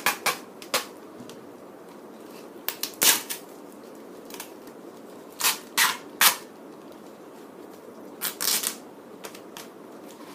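Sticky tape being pulled and wrapped around two plastic bottles: a dozen or so short, sharp crackles and rips, some coming in quick pairs or threes.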